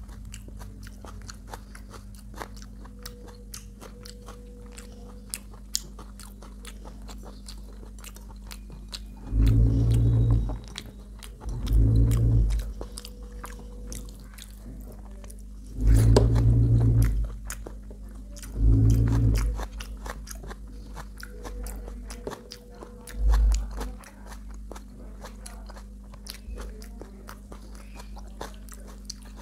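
Close-miked chewing and biting of food, with wet mouth clicks and crunches over a steady low hum. Five loud, low, dull rumbles of about a second each break in, the first about a third of the way through and the last about four-fifths of the way.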